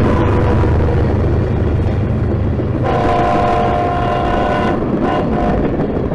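Freight train passing close by: a steady heavy rumble of a diesel locomotive and steel wheels on the rails as refrigerated boxcars roll past. A train horn sounds about three seconds in for nearly two seconds, then again briefly just after five seconds.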